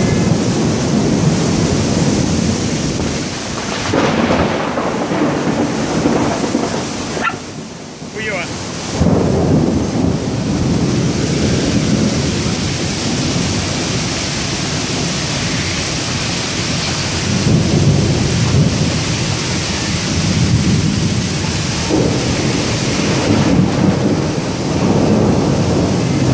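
Thunderstorm downpour: heavy rain hissing steadily, with thunder rumbling through it in several deep swells that build and fade.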